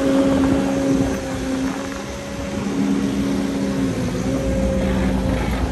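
Cat excavator's diesel engine running under load as its hydraulics raise the boom, heard from the operator's cab. The steady engine drone shifts in pitch and strength a few times as the load changes.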